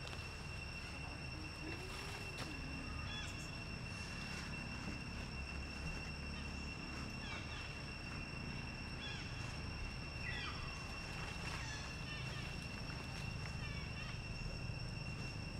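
Outdoor ambience: a steady high-pitched insect drone, with scattered short chirps and squeaks from animals over a low rumble.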